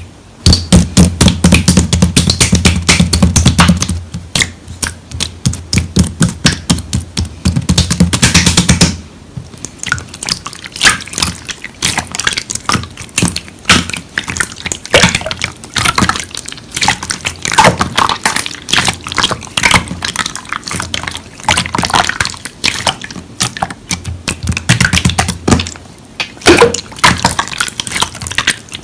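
Slime being squished and worked by hand, with a dense run of sticky, wet clicks and pops.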